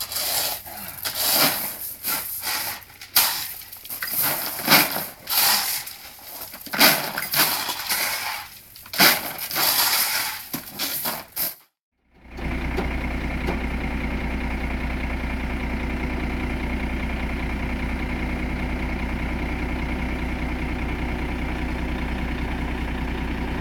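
Irregular scraping and rubbing for about the first half. After a brief cut, a truck engine runs at a steady idle.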